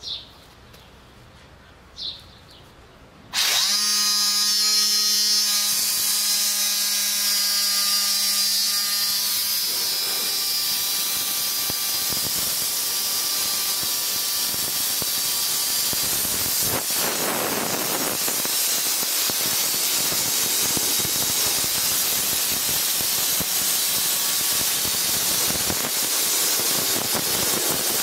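TESI 40 Eco Line soda blaster's nozzle running: compressed air and baking-soda abrasive come on suddenly a few seconds in with a loud hiss. A steady tone runs through the hiss for several seconds before it settles into an even rushing hiss. Two short high squeaks come before it starts.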